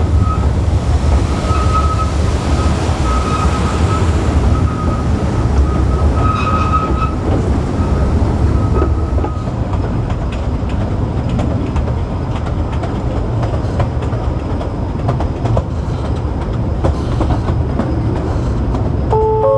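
Kurobe Gorge Railway narrow-gauge train running: a steady rumble of wheels on the track with light clicking, and a thin high wheel squeal that comes and goes through the first half.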